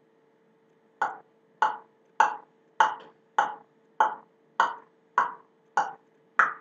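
A steady beat of sharp clicks, about ten of them at a little under two a second, starting about a second in.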